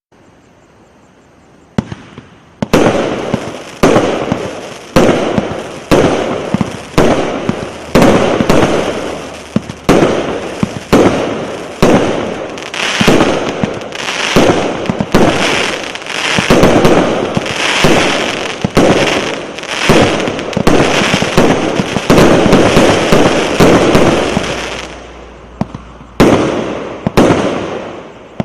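A 100-shot fireworks cake firing a long volley: sharp reports about once a second, each trailing off into crackle, denser toward the middle. It starts after a short quiet and thins to a few last shots near the end.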